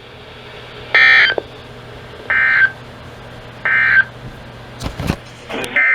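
Emergency Alert System SAME digital data bursts: three short screechy bursts about 1.3 seconds apart, the end-of-message code closing the warning just read. After a couple of clicks, a longer burst starts near the end, the header of the next alert.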